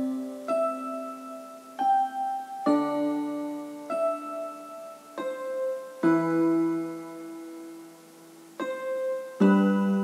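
Digital keyboard with a piano sound playing slow chords, a new chord struck every second or so and left to ring and fade, one held longer just past the middle.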